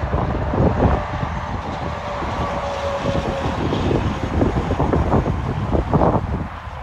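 Semi truck with an end-dump trailer driving past on the highway, its tyre and engine drone partly buried under heavy wind buffeting on the microphone.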